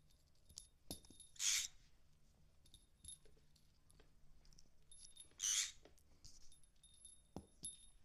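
Small metal jingle bell toy jingling in two short bursts a few seconds apart as a green-cheeked conure handles it in its beak, with faint ringing and a few light taps between.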